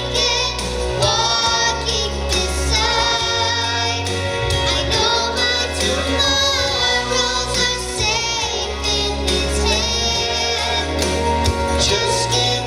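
Christian gospel song performed live: singing with vibrato over an instrumental accompaniment with a steady bass line.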